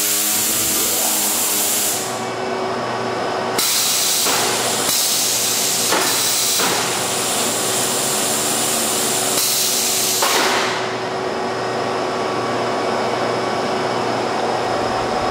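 Pneumatic drive of a Taylor clamp carrier running the carrier in reverse: a loud, steady hiss of compressed air that thins out and comes back a few times as the control is worked.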